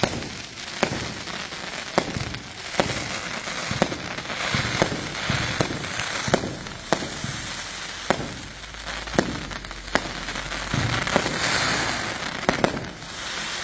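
Firework batteries firing in quick succession: a string of sharp bangs at uneven intervals, one or two a second. A rushing hiss swells twice between the bangs.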